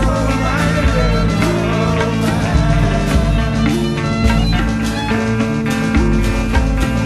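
Rock band music with drums, bass, guitars and keyboards. A lead melody bends and wavers in pitch over steady drum hits.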